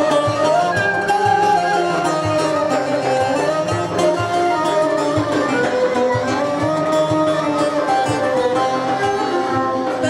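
Turkish folk ensemble music: plucked bağlamas play an ornamented melody over a steady hand-drum beat.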